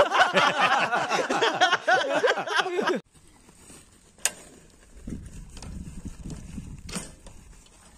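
A man's voice from a short inserted film clip, its pitch bending up and down, for about three seconds. It cuts off suddenly, leaving a faint low rumble and a couple of sharp clicks as the bicycle is handled on grass.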